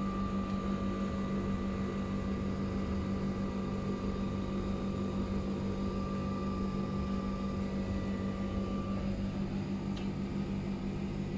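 Necta Solista coffee vending machine running as it makes a drink: a steady electric hum with a thin high whine that stops a couple of seconds before the end.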